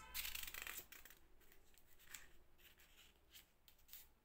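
Faint rustling and crinkling of a sheet of origami paper being folded edge to edge and creased flat with the fingers, loudest in the first second, then a few soft crackles.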